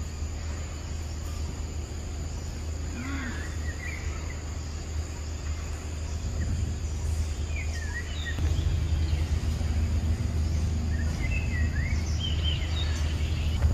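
Outdoor forest ambience: a steady low rumble that grows louder about two-thirds of the way through, under a faint steady high whine. Short high chirps or squeaks come in a few small clusters.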